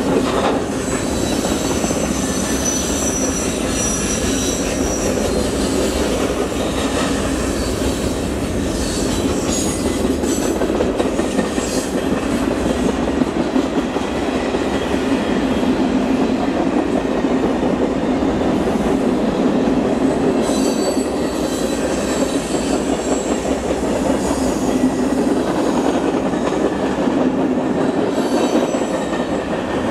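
Freight cars of a mixed freight train rolling past: a steady rumble of steel wheels on rail, with high-pitched wheel squeal from the curve that comes and goes several times.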